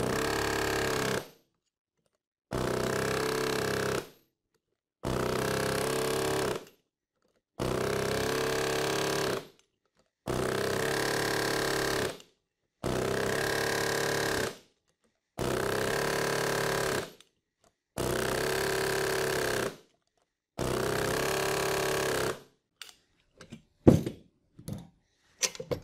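Air-powered rivet driver running in nine steady bursts of about a second and a half each, with short pauses between, as it drives rivets through a rubber guide block into a belt fastener. Near the end there are a few light clicks and knocks as the tool and guide block are handled.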